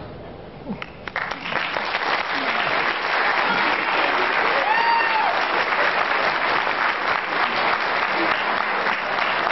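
Audience applauding at the end of a song performance, starting about a second in after the music stops and holding steady, with a single voice cheering about halfway through.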